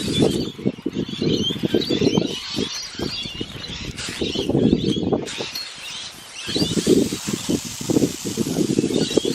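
Birds chirping and chattering outdoors over an uneven, gusting rumble of wind on the microphone.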